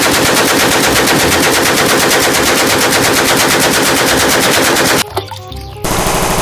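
AK-pattern rifle firing a long, rapid string of shots for about five seconds, then stopping. Near the end a toy rifle's electronic gunfire sound effect rattles in short, fast repeats.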